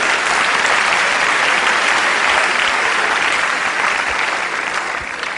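Theatre audience applauding: dense, steady clapping that begins to ease off near the end.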